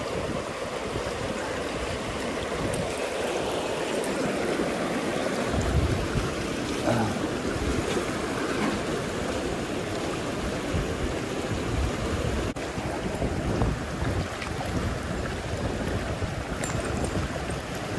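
River water rushing steadily, a continuous even wash with no voices.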